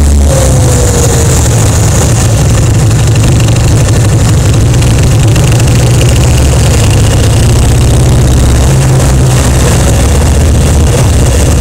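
Kawasaki Vulcan 1500 motorcycle's V-twin engine running steadily while riding, a low continuous drone with only slight changes in pitch.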